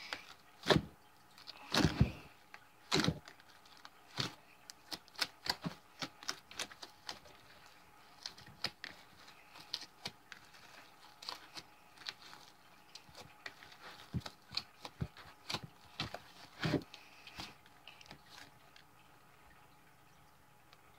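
Fluffy slime made from shaving cream and borax water being squeezed and kneaded by hand in a glass bowl: irregular wet clicks and crackles, loudest in the first few seconds, fading out a couple of seconds before the end.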